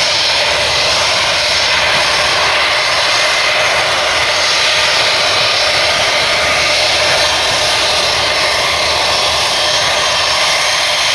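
Airbus A320-232's IAE V2500 turbofan engines at takeoff thrust during the takeoff roll: a steady, loud rush of jet noise with several held whining tones.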